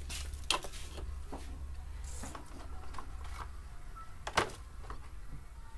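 Hard plastic toy vehicles knocking and clattering as they are handled and set into the bed of a large plastic toy dump truck, a few scattered clicks with the sharpest knock about four seconds in.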